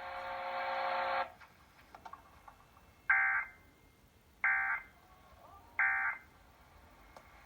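Emergency Alert System end-of-message code: three short bursts of warbling digital data tones, each about a third of a second long and about a second and a half apart, marking the end of the alert. Before them, a steady buzz runs for about the first second and stops.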